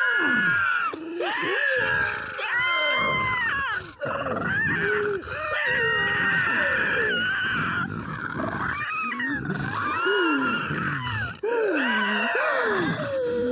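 A voice actor's multitracked creature vocalizations: several layered human voices making animal-like monster calls at once, high wavering calls over lower swooping ones that rise and fall in pitch. The calls break off briefly about four, five and eleven seconds in.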